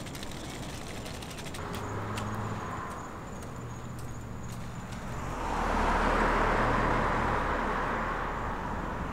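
A car passing on the road, its engine and tyre noise swelling in about five seconds in and easing off toward the end. Earlier there is a smaller swell of the same kind.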